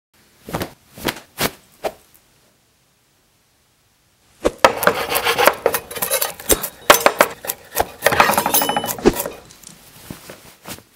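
Kitchen clatter of pots, pans and utensils being handled at a stove: four short separate knocks in the first two seconds, then from about four seconds in a dense run of irregular knocks and scrapes with a brief metallic ring, thinning out toward the end.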